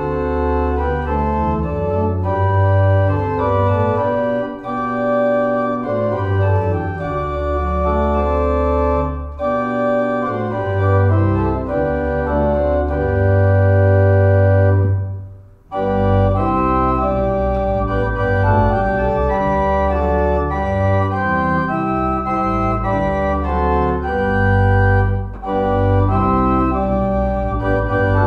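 Organ music: sustained chords over deep bass notes, with a brief pause about fifteen seconds in before the playing resumes.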